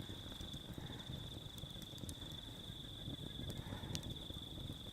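Insects chirring in one steady, high, finely pulsing trill, over a campfire crackling softly with a few scattered small pops.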